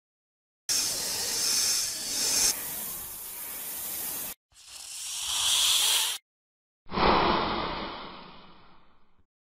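Hissing noise in three separate stretches, each cut off abruptly into dead silence; the last starts sharply and fades away.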